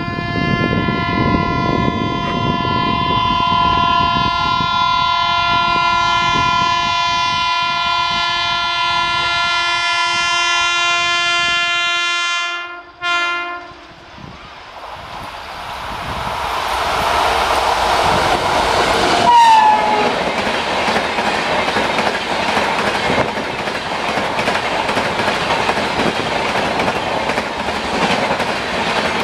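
A WAP-7 electric locomotive's horn sounds one long, steady multi-tone blast for about 13 seconds and cuts off suddenly. An express train then passes at speed: a loud, steady rushing of coaches and wheels with clickety-clack over the rails, with a brief falling squeak a few seconds into the pass.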